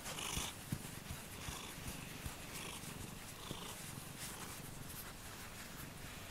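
Domestic tabby cat purring while being stroked, with soft rustling of fur under the hand close to the microphone.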